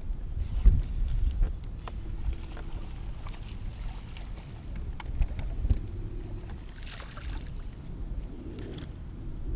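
A small bass being reeled in and swung aboard a bass boat: a steady low rumble of wind and water, scattered clicks and rattles from the rod, reel and lure, and a short splash about seven seconds in as the fish is lifted from the water.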